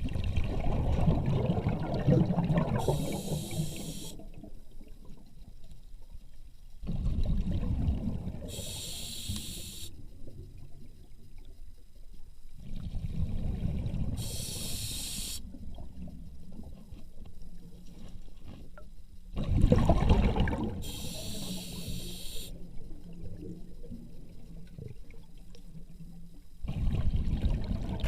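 Repeated cycles of gurgling, sloshing water, each followed by a short hiss of air, about every six seconds.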